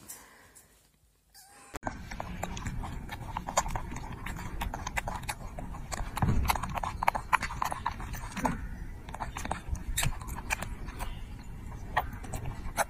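A young monkey eating and handling grapes: irregular wet clicks and smacks of chewing over a low background rumble. It starts after a brief silence about two seconds in.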